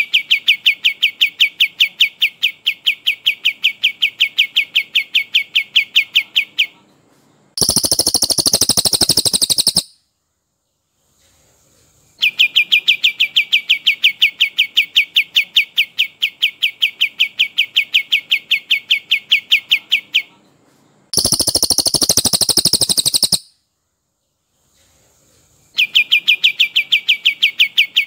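Recorded songs of a cililin and a kapas tembak in a bird-training track. A long, even trill of rapid repeated notes runs about eight seconds and is answered by a shorter, higher, buzzier rattle of about two seconds. The pattern repeats twice, with brief silent gaps between rounds.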